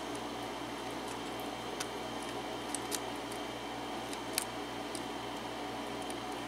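Lock pick working the serrated pins of a Kwikset six-pin pin-tumbler cylinder: a handful of faint, scattered metal clicks, the loudest about four and a half seconds in, over a steady background hum.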